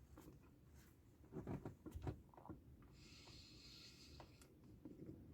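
Near silence with faint eating sounds from a spoonful of ice-cream Blizzard: a few small clicks and knocks, then a soft breath through the nose about three seconds in.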